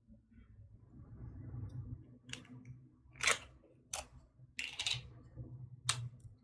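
Slime being worked by hand: a low handling rumble with about six short, sharp clicking pops at irregular intervals.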